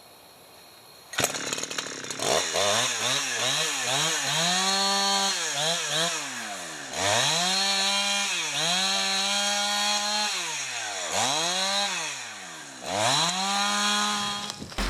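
Husqvarna 372XP two-stroke chainsaw, rebuilt with Chinese aftermarket parts, starting about two seconds in and revved up to full throttle and back to idle about five times, some revs held for a second or more, then cutting off suddenly near the end. The owner thinks it is running lean on the high-speed (H) screw and needs tuning.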